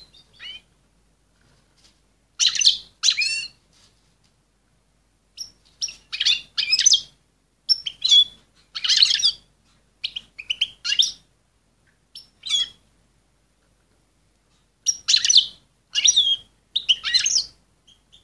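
Female European goldfinch calling in short clusters of high, twittering chirps, with pauses of one to two seconds between them. This is the excited call of a hen in breeding condition, used to stir males into readiness.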